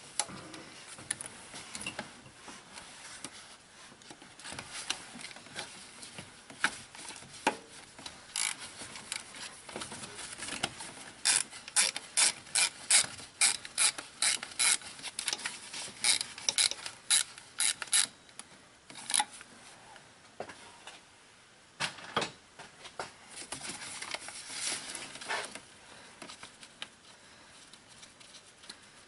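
Hand ratchet clicking in quick runs as bolts are turned out, with the loudest, fastest run in the middle and another run later on.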